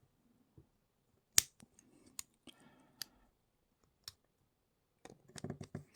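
Small metal clicks from handling a padlock and lock tools: one sharp click about a second and a half in, a few lighter ones spaced about a second apart, and a run of small clicks near the end.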